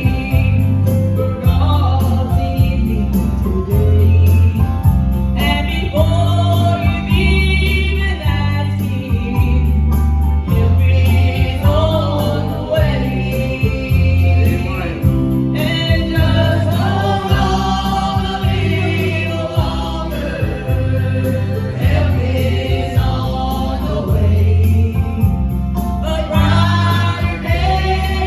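Gospel singing: several voices in harmony over an accompaniment with a steady, pulsing bass.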